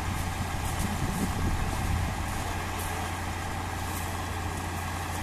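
Diesel engine of a tracked lifeboat-launching tractor running steadily at idle.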